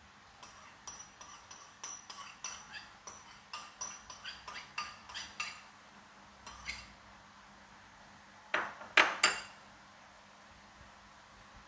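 Metal spoon clinking and scraping against a porcelain bowl as soy sauce is scooped out over a steel pot: a quick, uneven run of light clinks for about five seconds, one more a little later, then three louder clinks of crockery and metal about nine seconds in.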